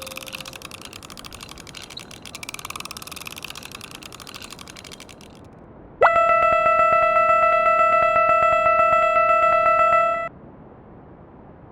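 Cartoon sound effects: a crackling rattle for about five seconds, then a steady electronic buzzing tone that slides quickly up at its start, holds for about four seconds and cuts off.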